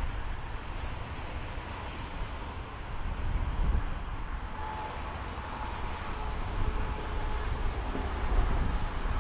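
Steady jet-engine rumble of a widebody twin-engine airliner rolling out on the runway after landing, mixed with gusty wind buffeting the microphone; a faint engine whine comes in about halfway through.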